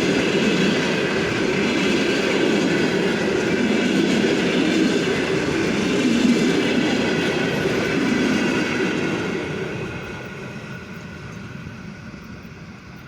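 Passenger train rolling past on steel rails, the wheel and rail noise loud and steady, then fading from about nine seconds in as the train draws away.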